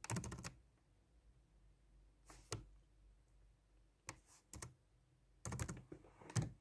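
Four short bunches of light clicks and taps a second or two apart, from a hand handling things close to the phone's microphone.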